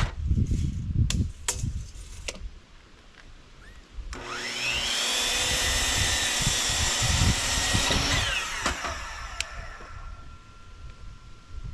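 A few sharp wooden knocks, then an electric power saw spins up with a rising whine, cuts through wood for about four seconds, and winds down.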